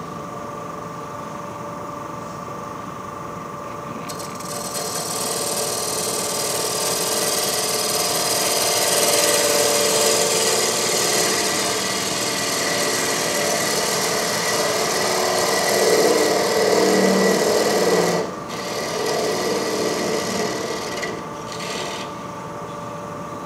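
A wood lathe spinning a wooden canteen body while a tool cuts or scrapes at it, a loud steady scraping hiss over the machine's hum. The cutting starts about four seconds in and breaks off briefly twice near the end.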